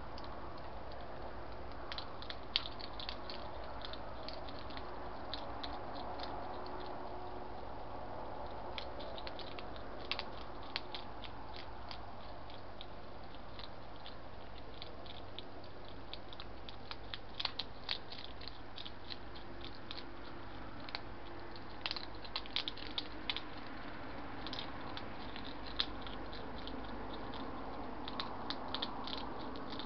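Two hedgehogs crunching and chewing their food, in irregular clusters of short, sharp crunches over a steady background hiss.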